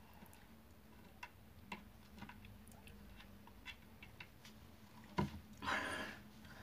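Faint, scattered small clicks and ticks of hands handling small hard objects, then a sharper click about five seconds in and a louder rustle lasting under a second.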